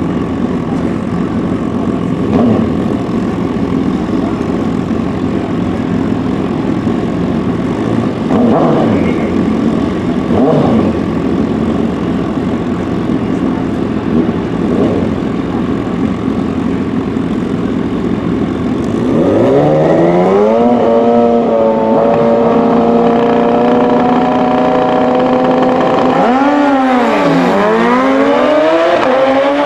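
Two inline-four drag motorcycles, a Suzuki Hayabusa drag bike and a rival superbike, idling on the start line with short throttle blips. About two-thirds in they rev up and hold steady high revs on the line; near the end the pitch dips sharply and climbs again as they launch.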